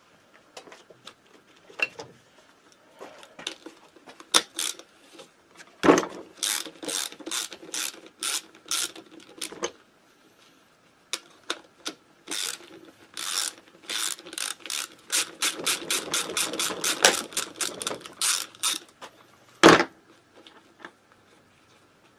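Socket ratchet wrench clicking in quick runs as screws are backed out of the engine casing, about four clicks a second. There is a sharp knock about six seconds in and a louder one near the end.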